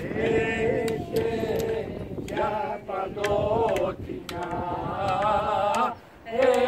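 A few older men singing unaccompanied, long held notes with a wavering, ornamented melody, sung in phrases with short breaths between them.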